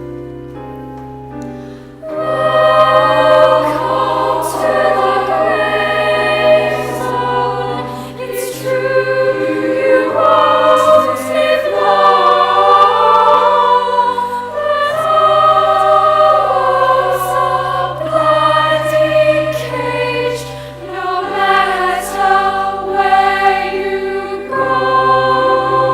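Choir singing a song from a stage musical over instrumental accompaniment, entering about two seconds in after a soft instrumental lead-in.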